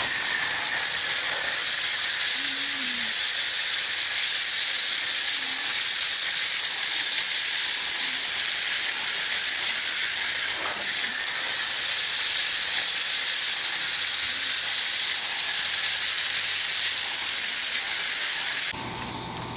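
Garden hose spray nozzle jetting water onto the coil fins of an outdoor air-conditioner condenser unit, washing the coil: a loud, steady hiss of spray that cuts off suddenly near the end.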